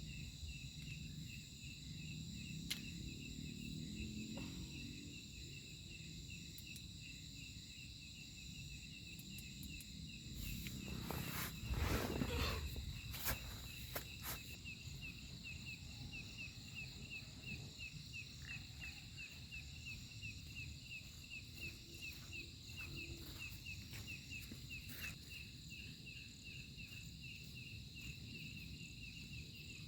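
Night insects: a steady high trill and a cricket chirping in a fast, even pulse. About halfway through comes a brief louder stretch of rustling and knocks.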